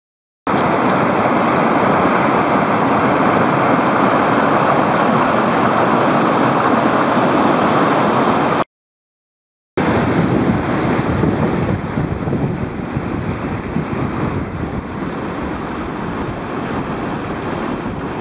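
Whitewater rapids rushing, a loud steady roar of water, in two stretches broken by about a second of silence near the middle.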